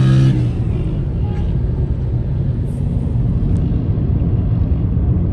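Wind rushing over the microphone and traffic rumble while riding a motorbike through traffic. A steady low droning note cuts off in the first moment.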